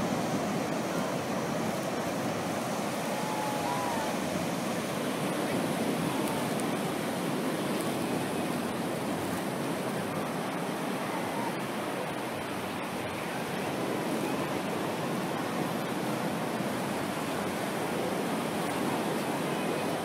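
Ocean surf breaking and washing up the beach: a steady rush of waves.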